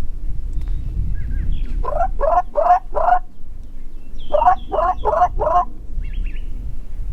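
Turkey yelping: two series of four quick yelps, each note dropping in pitch, with faint songbird chirps and a low wind rumble on the microphone.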